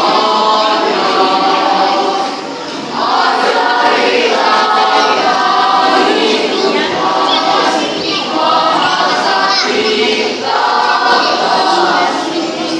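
A choir singing in sung phrases a few seconds long, with short breaks between them.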